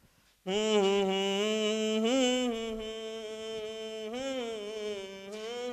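A man's voice holding one long, steady note, starting about half a second in, with two brief rises in pitch along the way.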